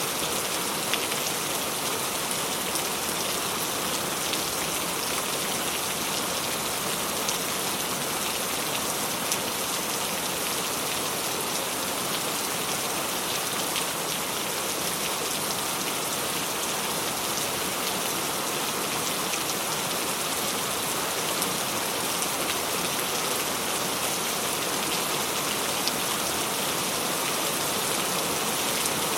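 Steady rain falling, with scattered individual drops ticking through it.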